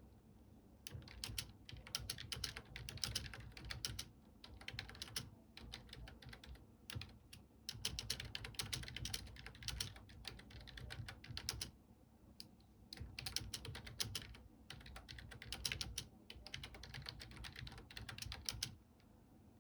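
Typing on a computer keyboard: rapid runs of key clicks broken by short pauses, stopping shortly before the end.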